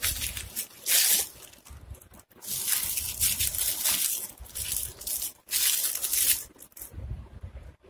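Metallic foil wrapping crinkling and rustling as hands peel it off layer by layer, in a series of bursts with short pauses between them. The crinkling stops about a second before the end.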